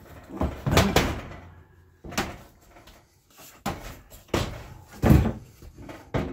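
Oven door hinges being handled and worked against the oven's sheet metal: a series of sharp metallic clanks and knocks, about half a dozen, spread irregularly.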